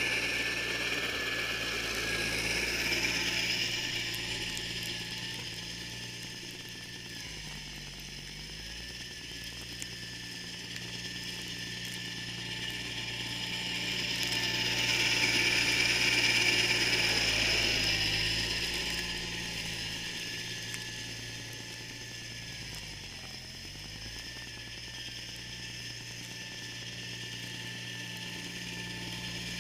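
John Deere 318 garden tractor running with its Model 49 snowblower working, a steady mechanical clatter over the engine. The engine pitch dips briefly twice, and the sound swells louder twice.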